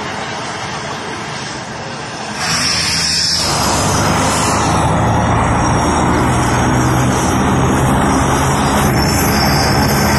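Helicopter turbine engine running on the ground with its rotor turning; about two seconds in it gets louder as a high whine and a low steady hum come in, then holds steady.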